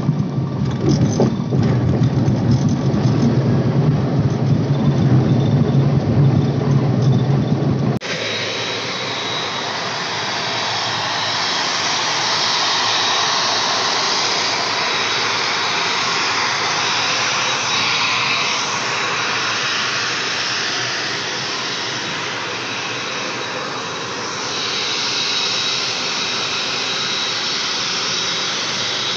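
ATR 72 turboprop engine and propeller droning steadily as heard inside the cabin while the plane rolls along the runway. About 8 seconds in it cuts to outdoors, where a steady aircraft turbine whine with a thin high tone and a rushing hiss carries on.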